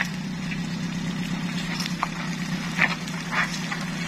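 Mitsubishi L300 pickup's engine running at a low, steady drone as the truck crawls through deep mud, with a few brief sharp noises about two to three and a half seconds in.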